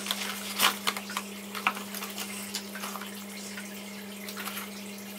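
Cardboard box being worked open and handled, with a hot sauce bottle drawn out of it: scattered rustles, scrapes and light clicks, the sharpest about half a second in and again about a second later. A steady low hum runs underneath.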